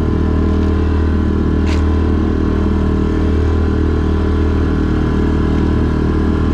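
Small boat's engine running steadily under way: a constant low hum with even overtones above it. One brief knock comes just under two seconds in.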